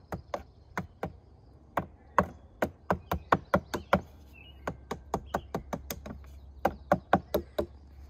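Hatchet tapping thin wooden wedges into the cracks between a log beehive and its lid: a run of sharp wooden knocks, about three to four a second, with short pauses. The wedges close the gaps before the bees seal the rest with propolis.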